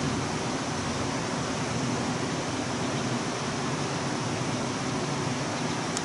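Steady, even rushing background noise with nothing standing out from it.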